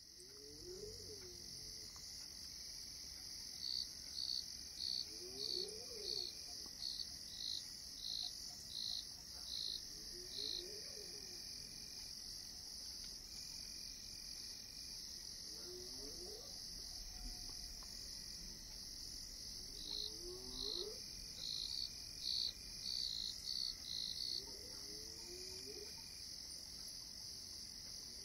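Steady high drone of crickets and other insects in the bush. Over it, a run of loud, evenly spaced chirps, about one and a half a second, comes twice. Faint low calls repeat every few seconds underneath.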